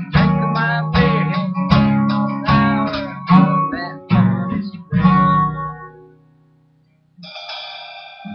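1960s Gibson Dove acoustic guitar strummed in chords about once a second, some notes sliding in pitch. The last chord is let ring and fades to near silence about six seconds in, and the playing starts again about a second later.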